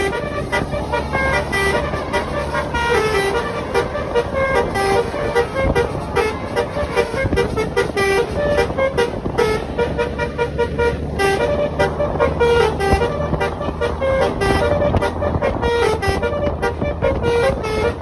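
Basuri electric musical 'telolet' bus horn playing fast runs of short tones of changing pitch, over and over, above the steady noise of engines and tyres.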